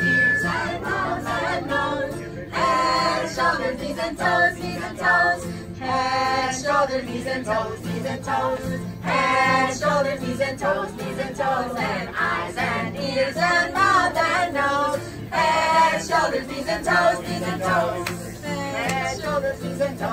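Children singing a song together over music accompaniment.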